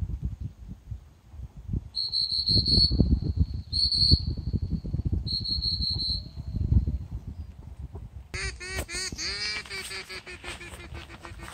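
Goose-like honking calls repeated in a quick run in the last few seconds, after three bursts of rapid high piping notes, over a low rumble of wind on the microphone.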